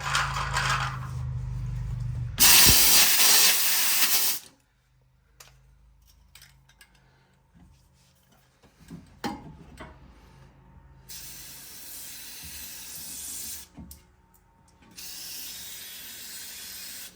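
A compressed-air blowgun blasts for about two seconds, blowing debris out from between a leaf spring and its rub block. Later come two quieter hissing sprays of two to three seconds each, with a few light knocks between them.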